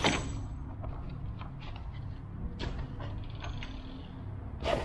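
A cardboard box being handled as a metal differential locker carrier is lifted out of it: cardboard rustles and scrapes with small clicks. There is a sharp, loud rustle at the start and another near the end, over a steady low hum.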